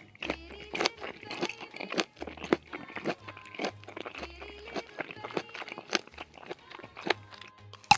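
Close-up eating sounds of sushi being bitten and chewed: a run of sharp, crunchy clicks and wet mouth sounds.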